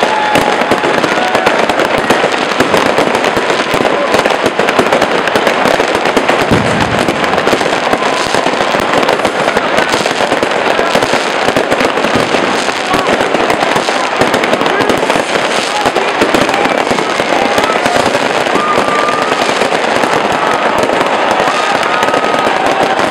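Many fireworks and firecrackers going off at once: a dense, unbroken crackling and popping that stays loud throughout.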